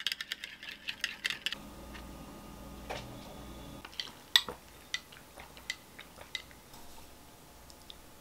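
A spoon clinking rapidly against the inside of a tall drinking glass as a drink is stirred, stopping about a second and a half in. After that a faint low hum and a few scattered light taps of cutlery and dishes.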